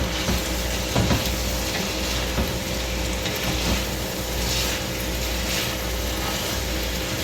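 Fried rice sizzling in coconut oil in a large pot while a spoon stirs it, with a few scraping strokes against the pot. Under it runs the steady hum of a room air conditioner.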